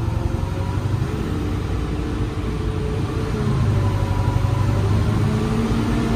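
Hitachi excavator's diesel engine lugging under hydraulic load as the machine's functions are worked, its speed pulled down and not recovering. It gets louder about halfway through. The engine bogs almost to stalling instead of raising torque, a fault the mechanic cannot yet explain.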